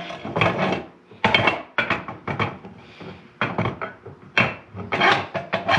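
Irregular metal clanks, knocks and scrapes as a rear axle shaft with its hub and disc brake rotor is slid into a Toyota mini-truck axle housing and worked to line up with the housing-end flange. Some of the knocks ring briefly.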